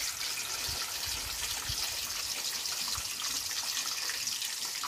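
Small wader fish deep-frying in hot oil in a wok: a steady sizzle, the sound of fish that are still cooking, with a few soft knocks.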